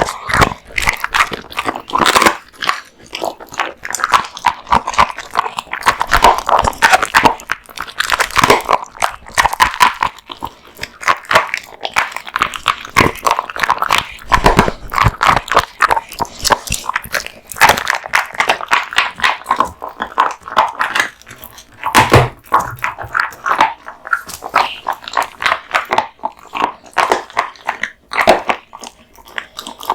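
American Bully dog chewing raw meat and bones: continuous irregular crunching and wet biting, with one heavier knock about two-thirds of the way through.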